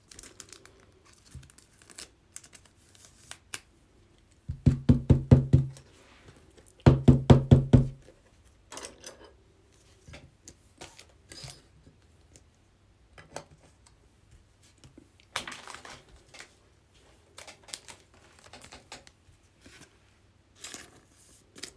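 Handling of trading cards and their packaging: scattered light knocks, clicks and crinkles, with two louder rasping bursts of about a second each, about 4.5 and 7 seconds in, like a wrapper or tape being torn.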